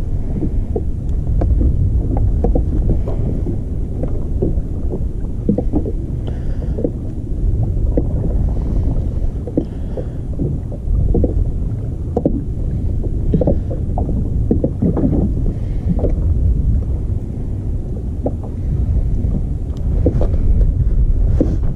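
Wind rumbling on the camera microphone, with water lapping and knocking against a kayak hull and a jacket sleeve brushing close to the microphone.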